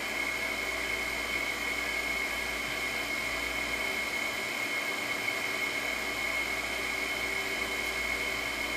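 Steady machine noise from the background: an even whirring hiss with a constant high-pitched whine that does not change.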